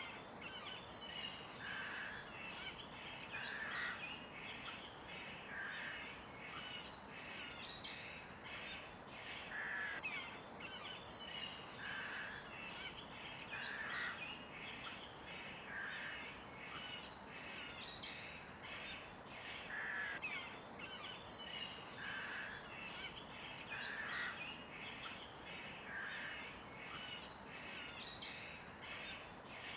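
A chorus of songbirds chirping and calling, with many overlapping high, quick chirps and whistles over a steady background hiss; one lower call recurs about every two seconds.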